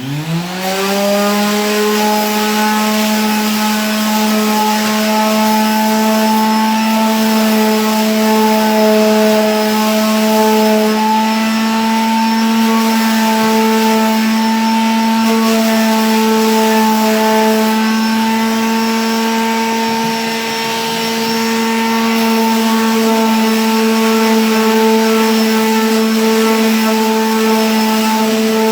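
Electric sander switched on, its motor spinning up in pitch over the first second, then running steadily with a hum and a hiss as it sands a canvas.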